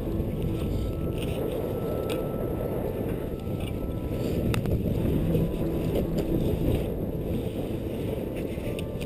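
Strong wind buffeting the microphone of a GoPro HD helmet camera: a steady low rumble, with a few faint knocks.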